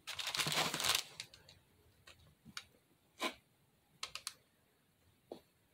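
Metal spatula scraping spackle frosting across the top of a foam fake cake for about a second, then several light clicks and taps as the blade works the surface.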